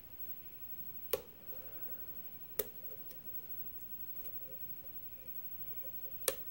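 Light metallic ticking of a lock pick working the pin stack of a mortise lock cylinder under tension, with three sharp clicks, about a second in, past two and a half seconds, and near the end: pins clicking as they set during single-pin picking.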